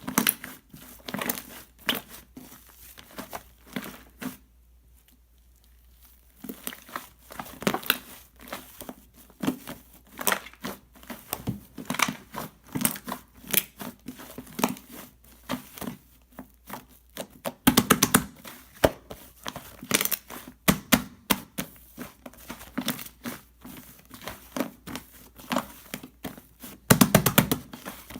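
Rainbow shaving foam being worked and pressed, giving a steady stream of small crackles and pops. There is a quiet pause a few seconds in, and two louder dense bursts of crackling later on.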